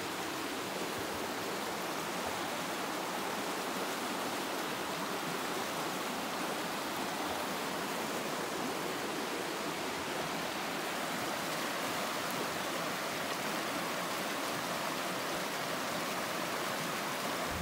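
Fast-flowing stream rushing over rocks, a steady unbroken rush of white water.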